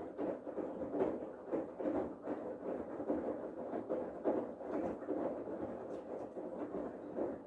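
Bosch Serie 8 front-loading washing machine in its main wash: the drum turning, with water and laundry sloshing in uneven surges about twice a second. The sound stops suddenly right at the end as the drum pauses.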